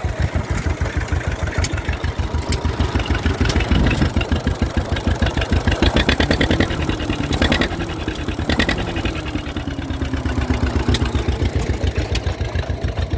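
Novo two-cylinder stationary engine running steadily, its firing heard as a fast, even pulse.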